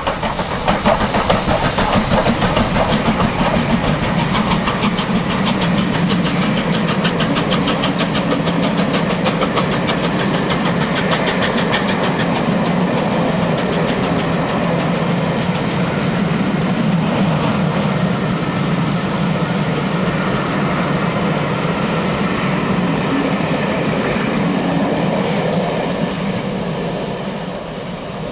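LMS Black 5 4-6-0 steam locomotive 45212 running through at speed, followed by its train of coaches clattering over the rail joints in a steady rhythm. The sound fades near the end as the last coach draws away.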